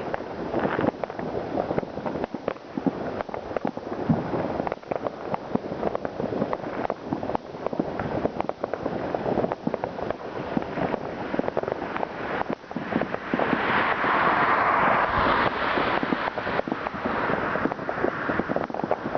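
New Year's Eve fireworks: a dense, irregular barrage of firecracker bangs and cracks, with a louder hissing crackle swelling about two-thirds of the way in and fading over a few seconds.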